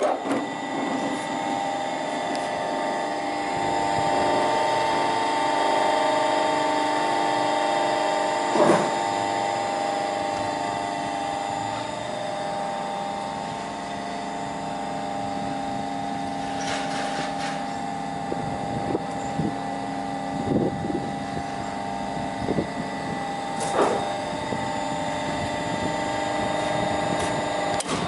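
Electric long-belt wood sander running steadily, its motor and abrasive belt giving a constant hum with several fixed tones. A few short knocks stand out, about a third of the way in and again near the end.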